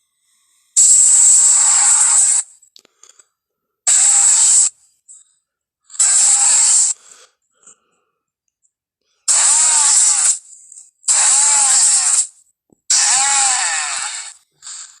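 Triceratops creature sound effect: six breathy, hissing bellows, each about a second long, with a pitch that rises and then falls, separated by short silences, and a very short one near the end.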